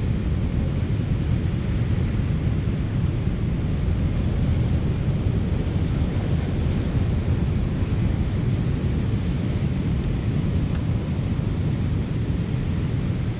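Steady wind noise on the microphone over the continuous wash of surf breaking on the shore.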